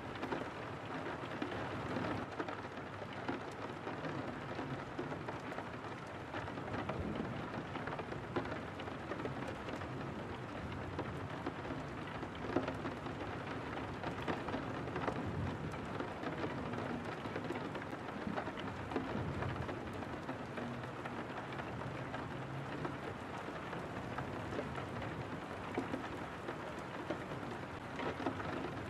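Steady rain falling on a window, a dense patter of small drop ticks.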